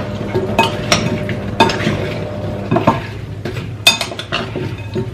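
A metal utensil stirring oiled, seasoned chunks of potato, bell pepper and carrot in a glass mixing bowl: a wet, slithering rustle with irregular clinks of metal against the glass.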